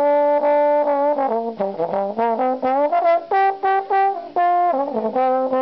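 Brass instrument playing a quick, jazzy melody line of short notes that jump in pitch, with brief gaps between phrases.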